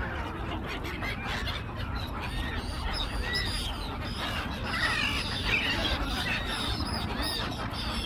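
A flock of gulls calling: many short, overlapping arched cries, over a steady low rumble.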